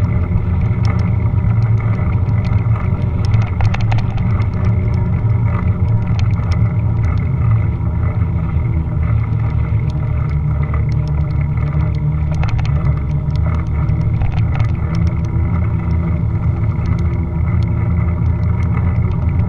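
Steady low rumble of wind and road vibration picked up by a GoPro camera on a moving bicycle, with scattered sharp clicks and rattles throughout.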